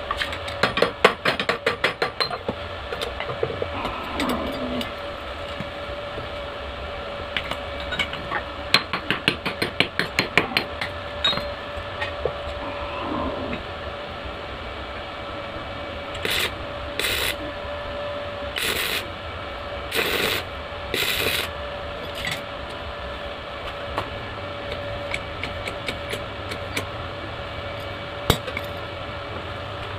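Homemade belt-driven power hammer run in two short test bursts, its ram striking rapidly several times a second. Then five short crackling bursts of arc welding as the rod is tacked onto the linkage, over a steady hum.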